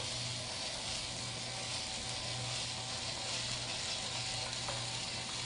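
Small battery-powered drill running steadily with a gear whir, driving a screw out of a take-apart toy fire truck.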